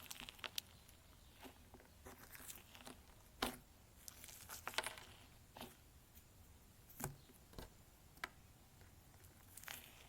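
Slime being pressed and squished by hand, giving quiet, irregular clicks and pops, a few sharper ones about three and a half, five and seven seconds in.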